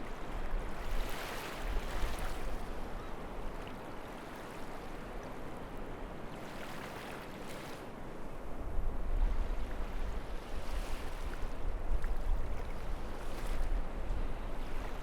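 Sea waves breaking and washing up a beach, surging four times, under strong wind. The wind buffets the microphone as a low rumble that eases early on and builds again past the halfway point.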